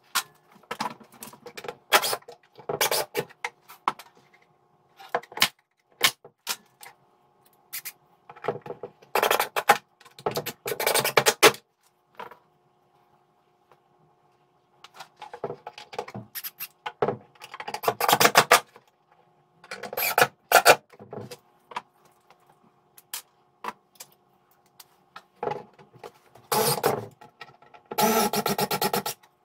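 Hand tools, metal hand planes among them, being handled and set into a wooden wall cabinet: irregular clunks, clicks and scrapes of metal on wood, a longer clatter near the end, over a faint steady hum.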